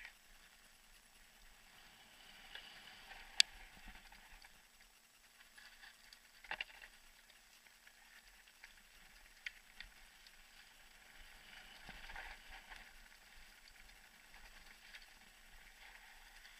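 Mountain bike rolling down a gravel singletrack: faint crunch of tyres on loose stones, with scattered sharp clicks and knocks as the bike rattles over bumps, the loudest about three and a half seconds in.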